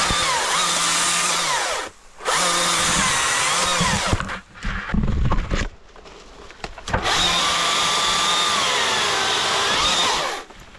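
Husqvarna 542i XP battery chainsaw revved in three bursts, motor whine and chain together, its pitch sagging within each burst as the chain bites into small spruce stems. Between the second and third bursts there is a short rustle and crackle of brush.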